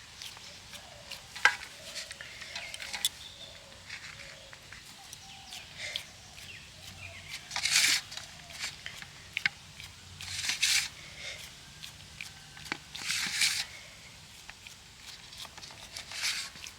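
Hands pressing and stretching pizza dough across an oiled plate: short soft scrapes every two to three seconds, with faint clicks between them.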